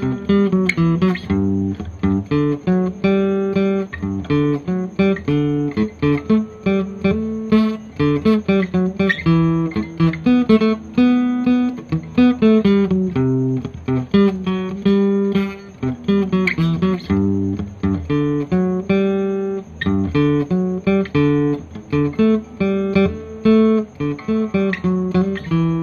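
Acoustic guitar played solo, picking a run of notes and chords that change quickly one after another.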